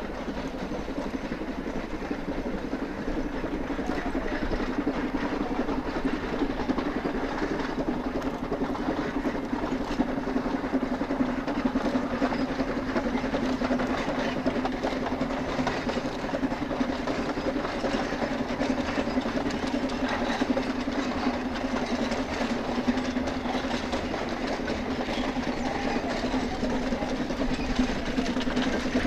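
C2 class narrow-gauge steam locomotive hauling a train of wagons, heard from afar: the steady working sound of the engine and the rolling train, growing a little louder over the first few seconds and then holding.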